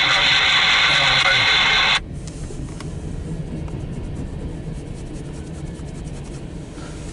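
A loud steady hiss cuts off abruptly about two seconds in, leaving the rumble of empty coal hopper cars rolling past, with a quick run of faint clicks from the wheels, heard from inside a car.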